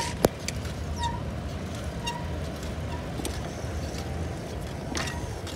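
A mountain bike's tyre rolling on asphalt under a steady low wind rumble on the microphone, with one sharp click about a quarter of a second in.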